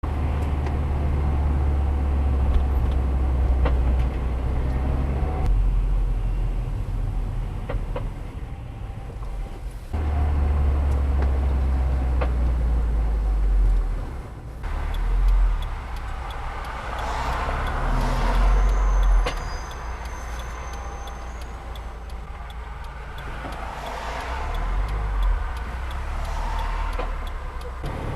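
Car running with a steady low rumble, with a few sharp clicks and clunks from the brakes.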